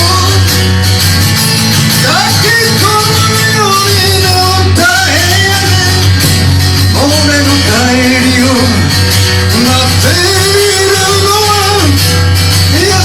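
Loud band music with a singer's voice over a steady bass.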